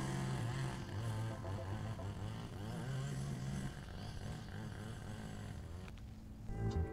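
Small engine of lawn equipment running steadily, heard from across the yard, fading out about six seconds in.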